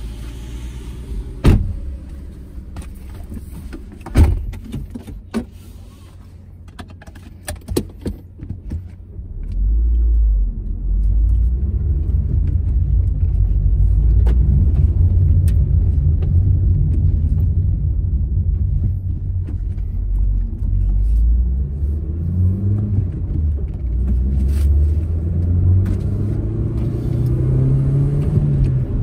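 Proton Saga MC2 car with a few sharp clicks and knocks over a low hum, then from about ten seconds in a much louder steady rumble of engine and road, the engine note rising and falling as the car is driven through the gears of its manual gearbox.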